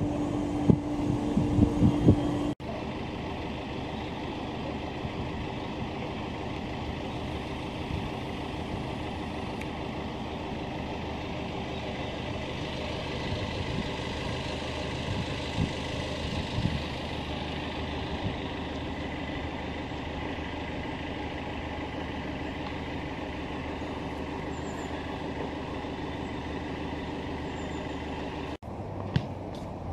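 Wind buffeting the microphone for the first couple of seconds, then a sudden cut to steady city road traffic: cars, a taxi and a bus passing, a continuous hum of engines and tyres.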